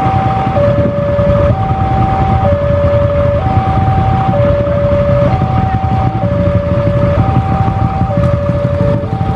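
Railway level-crossing warning alarm sounding, an electronic tone alternating between a higher and a lower pitch, each held for about a second, over a steady heavy low rumble.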